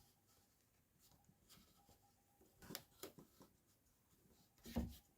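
Near silence, broken by a few faint taps in the middle and one soft thump near the end.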